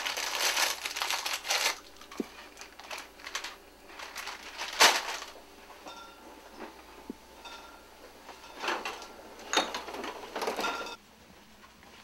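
Handling noises: rustling for the first couple of seconds, then scattered clicks and knocks, with one sharp knock about five seconds in. The sound drops suddenly to quiet near the end.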